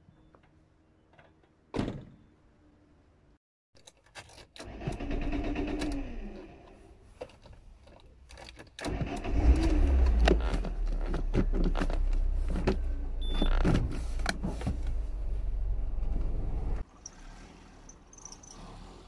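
A car door shuts with a single knock, then inside a small car a motor whirs briefly with a falling pitch. The engine then runs with a steady low rumble, overlaid by close knocks and rustles, until the sound drops away sharply near the end as the car pulls off.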